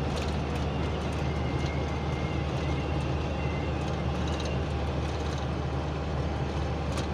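Steady engine and road noise inside a moving car's cabin at highway speed. A faint high whistle comes and goes over it, a wind whistle that the driver thinks comes from the front, around the windshield.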